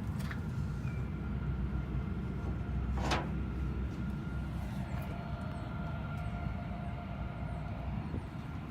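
TMAC150 air start unit running, with a steady low rumble and a high steady whine. A single metallic clank about three seconds in.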